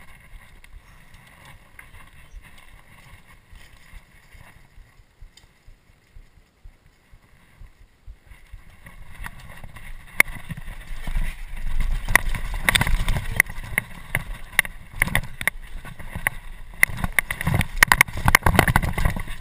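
Downhill mountain bike rolling over a dirt and rock trail, tyres on gravel with a low rumble. From about ten seconds in, the bike goes down a rocky, stepped section, and rapid clattering and knocking from the tyres and the rattling bike gets louder.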